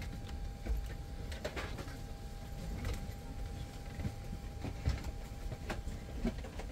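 Aircraft cabin on the ground before departure: a steady low rumble of air and systems with a faint steady tone, and scattered light clicks and knocks.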